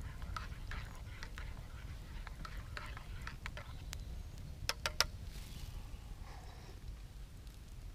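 Wood campfire crackling with many small ticks over a steady low rumble, and three sharp pops close together about five seconds in.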